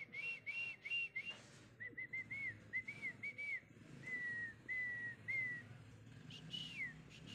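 Someone whistling a tune in short rising-and-falling notes, several a second, then a few longer falling notes near the end.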